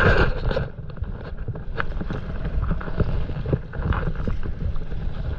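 Wind rumbling on the camera microphone over water lapping around a paddleboard, with scattered small knocks and splashes. A loud rush of noise comes right at the start.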